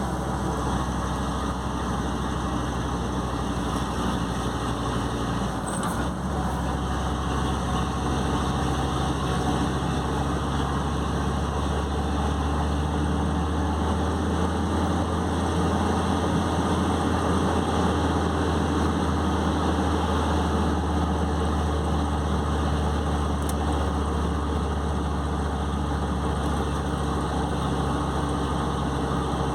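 Mercedes-Benz OM 449 truck diesel engine running steadily, with a small change in its note about six seconds in.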